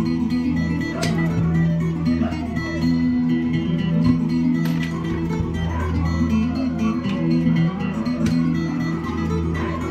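Music led by plucked guitar.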